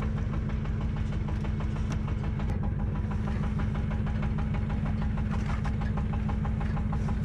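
A small fishing boat's engine running steadily, with a low, even, rapid beat.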